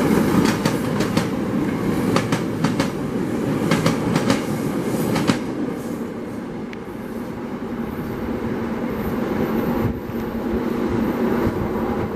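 SEPTA Silverliner IV electric commuter train rolling past close by, its wheels clacking rapidly over rail joints for the first five seconds or so. The clacking then gives way to a steadier rumble and hum that dips and builds again toward the end as another Silverliner train approaches.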